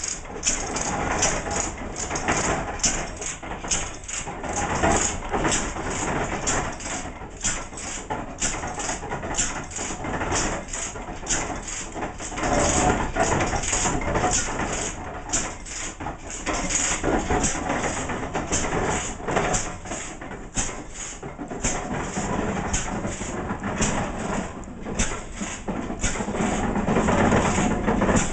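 Single-cylinder horizontal stationary gas engine with twin flywheels running steadily, its exhaust beating at about two a second, driving an oil-well pumping rig.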